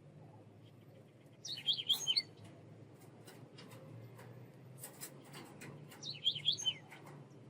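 A small songbird gives two short bursts of quick, high chirps, about a second and a half in and again near the end, with faint scattered clicks between them over a steady low hum.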